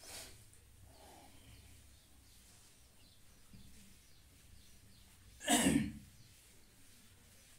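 A whiteboard being wiped clean, faint rubbing over a low hum, with a short loud rush of noise about five and a half seconds in.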